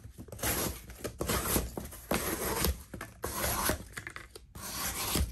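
Wharncliffe D2 folding-knife blade slicing through single-wall cardboard from an Amazon box, in about five long scraping strokes with short pauses between them. The blade cuts cleanly through the box.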